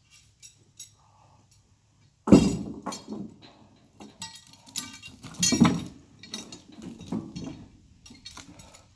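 A run of irregular metallic clanks and knocks with a ringing edge, the loudest a heavy clank about two seconds in.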